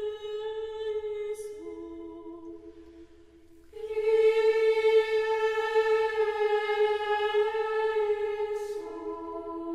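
Ambrosian chant: voices singing long held notes. The pitch steps down about a second and a half in, and the singing dies away near three seconds. It comes back louder on a new held note just before four seconds and shifts again near the end.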